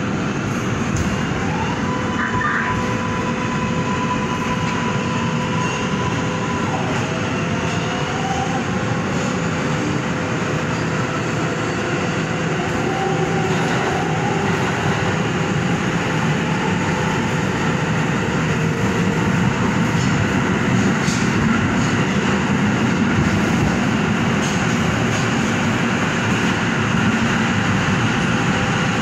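R188 subway car of the 7 train running at speed through a tunnel, heard from inside the front of the car: a steady rumble of wheels on rail with a constant hum. Near the start a higher electric tone holds for about five seconds, then slides down in pitch about seven seconds in.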